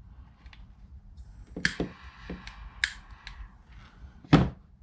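A few sharp clicks and knocks from handling soldering tools and wire, the loudest about four seconds in, with a faint hiss for a couple of seconds in the middle.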